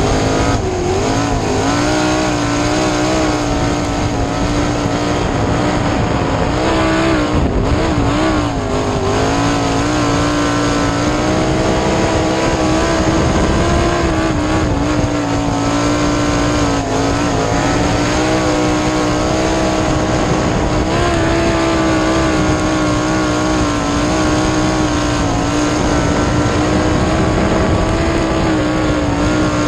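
Onboard sound of a winged 410 sprint car's methanol-fuelled V8 at racing speed on dirt. The engine pitch dips and climbs again as the throttle comes off and back on through the turns.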